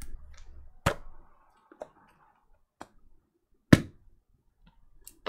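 A few separate sharp clicks and knocks of plastic parts and the speaker's enclosure being handled and set on a work mat, with a faint brief scrape early on; the loudest knock comes a little before four seconds in.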